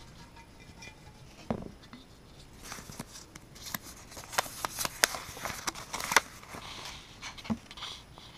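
Folded paper note crinkling and rustling as it is handled and unfolded, a run of crackly clicks through the middle of the clip, with a soft thump about a second and a half in.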